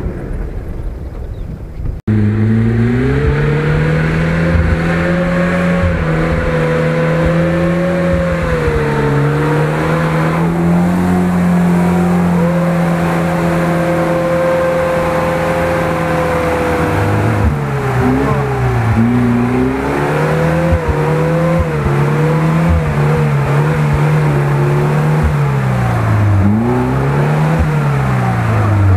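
Wind rumble for about two seconds, then the engine of a GAZ-69 off-roader working through deep mud: held at fairly steady revs at first, then revving up and down again and again from about the middle on. Muddy water splashes around the wheels.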